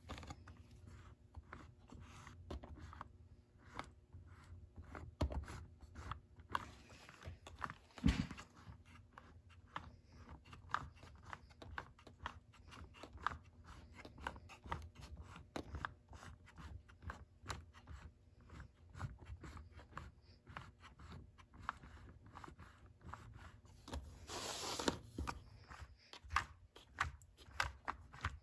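Lego overhead-cam vacuum engine running, its plastic pistons, valves and cam clicking and clattering several times a second. There is one louder knock about eight seconds in and a brief hiss near the end.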